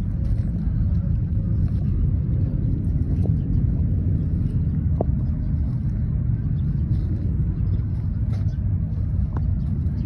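Steady low rumble of outdoor background noise, with a few faint ticks scattered through it.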